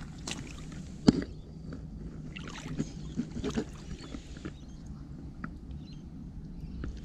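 Shallow lake water splashing and swirling as a released bream kicks away from the shallows, in a run of short splashes between about two and four and a half seconds in. A single sharp knock about a second in is the loudest sound, over a steady low background rumble.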